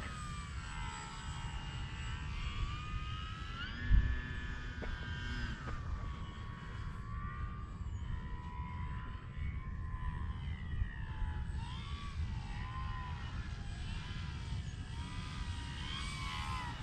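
Electric motor and propeller of a Dynam Cessna 188 radio-controlled model plane whining in flight, its pitch rising and falling as it flies about. A steady low rumble lies underneath, and there is a thump about four seconds in.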